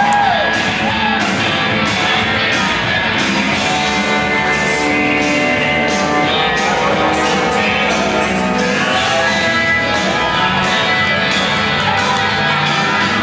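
Loud dance music with a steady beat and a singing voice.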